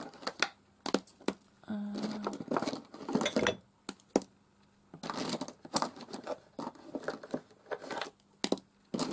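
Plastic felt-tip pens clicking and rattling against each other and the desk as they are sorted out and laid down on a paper page, with short bursts of rustling between the clicks.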